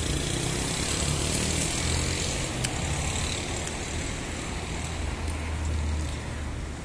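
Road traffic: a motor vehicle's engine giving a steady low hum over street noise.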